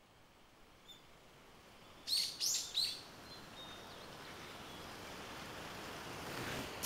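A bird calls three short, high chirps in quick succession about two seconds in. A faint hiss follows and grows slowly, with one sharp click near the end.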